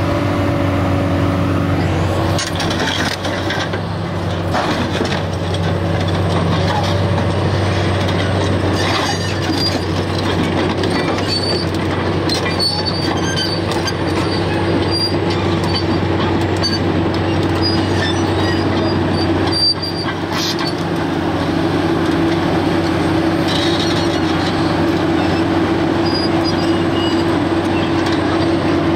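New Holland E385 crawler excavator's diesel engine running steadily, with a steady whine and a few short high squeaks in the middle as the machine works.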